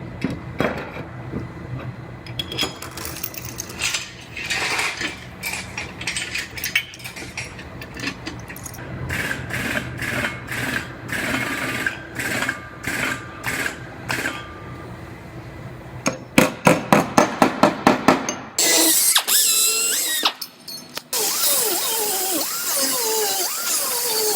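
Auto body tool work on sheet metal: a power tool running in spells, with clicks and knocks, then a quick run of about ten sharp clicks. From about three-quarters of the way in, a thin, high sound full of quick rising and falling chirps takes over.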